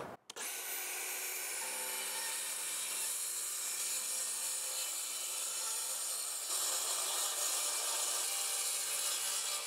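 Cordless DeWalt track saw running steadily as its blade cuts through plywood sheathing along the guide rail, getting slightly louder about two-thirds of the way through.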